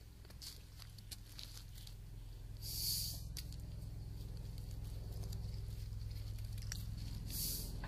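Cat fur rubbing and brushing against the camera's microphone: scattered small clicks and two short hissy rustles, about three seconds in and near the end, over a low steady rumble that grows louder as the cat presses close.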